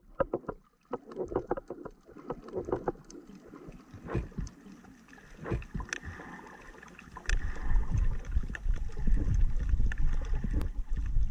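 Underwater sound picked up through a camera housing: scattered sharp clicks and low knocks, then from about seven seconds in a louder, steady low rumble of moving water.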